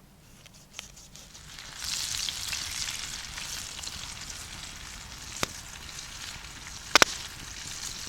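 Fish fillet frying in hot oil in a pan: a crackling sizzle that swells about two seconds in and holds. A few sharp clicks cut through it, the loudest a quick double click near the end.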